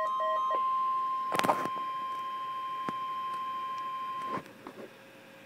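NOAA Weather Radio warning alarm tone: a single steady 1050 Hz tone that cuts off about four and a half seconds in, sounding during the weekly test of the public warning system. Pulsing beeps sound over it during the first half-second, and a loud, brief rattle cuts across it about a second and a half in.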